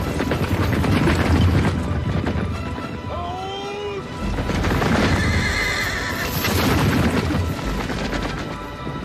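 Film soundtrack of a cavalry charge: many horses galloping, with a horse whinny about three seconds in, over music.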